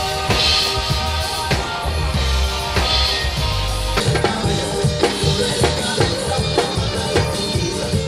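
Loud music from a street one-man band: a drum kit played along with music over large loudspeakers. A deep, steady bass and held tones fill the first half, then busy drumming with quick, even hits takes over about four seconds in.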